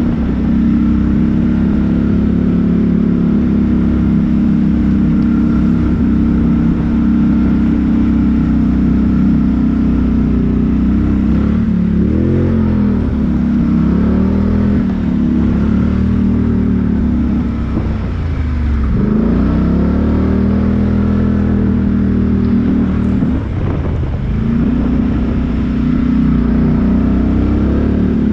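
A four-wheel-drive off-road vehicle's engine works up a rock step. It runs steadily for the first ten seconds or so, then revs up and down several times through the middle. Near two-thirds of the way through the pitch sags low and climbs back sharply.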